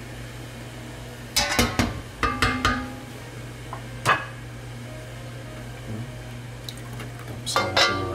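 Cast iron wok clanking in a few short clusters of sharp, ringing knocks and scrapes as a spatula spreads oil in it and the wok is tilted and set back down on the glass cooktop.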